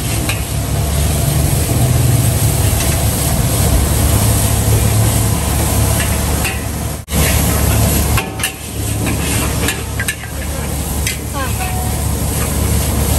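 Mee goreng frying in a wok on a gas burner: a steady low burner rumble under the sizzle, with the metal ladle and spatula knocking and scraping against the wok. The sound cuts out briefly about seven seconds in.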